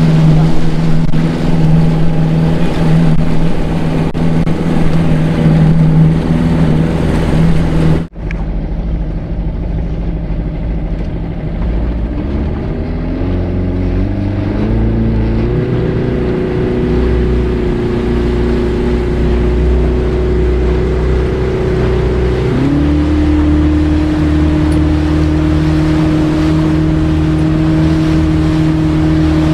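Outboard motor driving a small motorboat at speed, running steadily under a rushing noise. The sound breaks off sharply about eight seconds in. After that the engine's pitch climbs over a few seconds as it speeds up, holds steady, and steps slightly lower near three-quarters of the way through.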